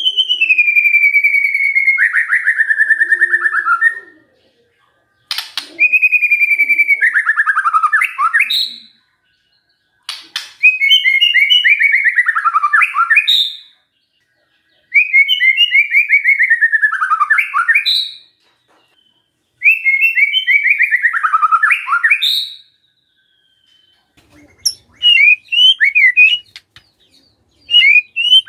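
White-rumped shama singing a buzzy, rattling phrase about five times, a few seconds apart. Each phrase slides downward and ends in a quick upward note. Near the end the bird switches to a run of short, quick whistled notes.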